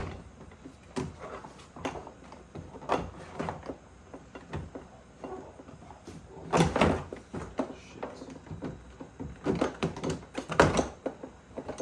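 Plastic trim clips on a Toyota Tacoma door panel being pressed and snapped into the door, with scattered knocks and handling noise; the loudest snaps come about six and a half and ten and a half seconds in.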